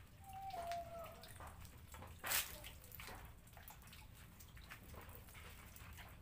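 Water running from a tap and splashing over passion fruit being rubbed clean by hand, dripping into a basin below, with a single sharp splash or knock about two seconds in.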